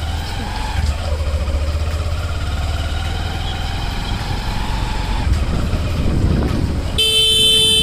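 Motorcycle engine running with a steady low rumble as the bike rides along. Near the end a horn honks once, held for about a second.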